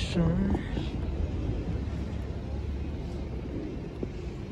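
Outdoor city-square ambience: a steady low rumble of street noise, with a brief snatch of a voice right at the start.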